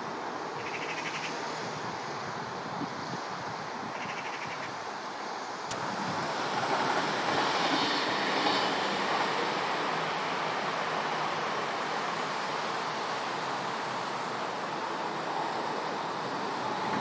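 Steady outdoor rumble and hiss with wind on the microphone, swelling louder about six seconds in and easing off again a few seconds later.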